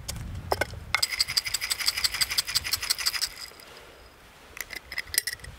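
Dried spices (juniper berries, cardamom pods and peppercorns) clicking and rattling against the glass of a small clip-top jar, a dense run of rapid glassy clicks lasting about two seconds. A few separate glass clinks follow near the end as the spices are tipped into a larger jar.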